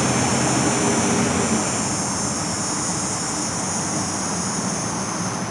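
Steady mechanical noise: a low hum under a strong high hiss, easing slightly about two seconds in.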